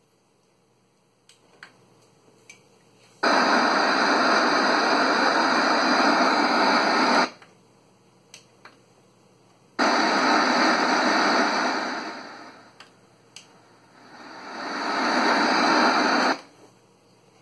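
Sylvania 6513DF CRT TV/DVD combo's speakers hissing loud static from an untuned channel with no signal, in two stretches of several seconds. In the second the hiss fades down and swells back up as the volume is lowered and raised, then cuts off suddenly; soft clicks of the front-panel buttons come before and between.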